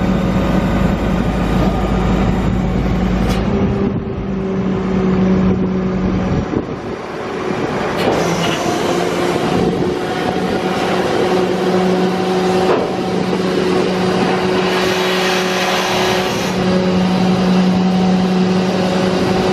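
Mercedes-Benz MBE900 7.2-litre inline-six diesel of a Freightliner M2 refuse truck running, a steady hum with a deep rumble that fades away a few seconds in, and a few knocks and rattles partway through.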